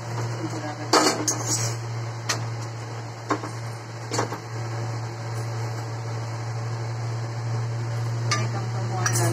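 Steel ladle clinking against a tawa (flat griddle) as a paratha is pressed down on it to cook: several sharp clinks in the first four seconds and two more near the end, over a steady low hum.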